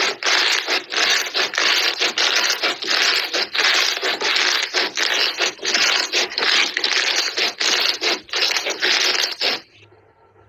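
Lumpy green textured slime being pressed and kneaded by hand, giving a dense, continuous crackling and crunching. The crackling cuts off suddenly near the end.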